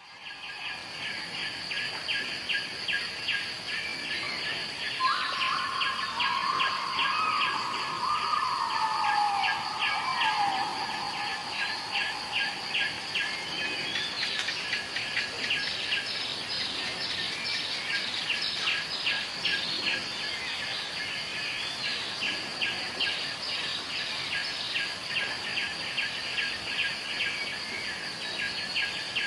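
Birds calling over a steady, rapidly pulsing chirr, with a longer call that slides down in pitch a few seconds in.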